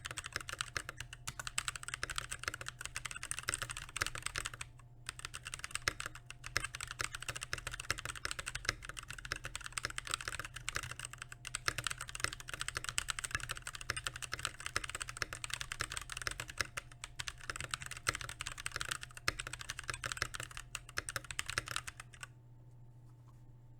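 Typing on a Keychron K6 mechanical keyboard with Glorious Holy Panda tactile switches: rapid, continuous key strokes. There is a brief pause about five seconds in, and the typing stops a second or two before the end.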